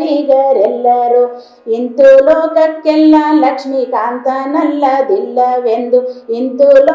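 A woman singing a Kannada devotional song solo, with a short pause for breath about a second and a half in.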